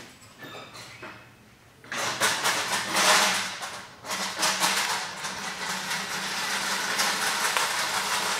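Jet drill press motor switched on about two seconds in, then running steadily with a low hum under a broad whirring hiss.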